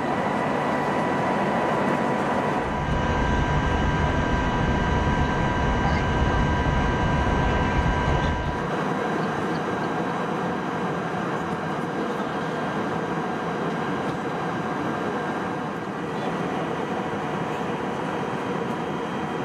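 Airbus A321 cabin noise in cruise: a steady rush of airflow and engine hum. The low rumble is heavier from about three to nine seconds in.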